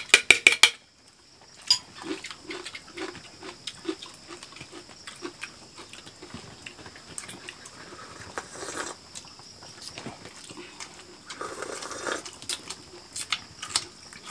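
People eating with their hands: chewing and lip-smacking, with scattered small clicks and taps of fingers, spoons and dishes. A quick cluster of loud clicks comes right at the start.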